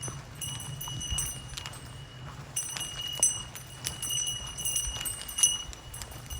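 A small bear bell jingling over and over in time with a hiker's walking, with footsteps thudding on the trail. The bell is rung to warn bears off where few people are about.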